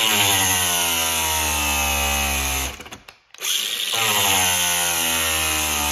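Angle grinder with a thin cut-off wheel cutting into a rubber intake elbow. It runs in two spells with a brief stop about three seconds in, and its whine sags slightly in pitch during each spell as the wheel bites into the rubber. The wheel makes poor headway through the rubber.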